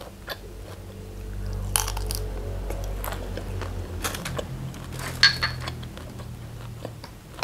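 A person chewing a prawn close to the microphone, with sharp mouth and handling clicks. About five seconds in comes the loudest sound, a short ringing clink of a small glass.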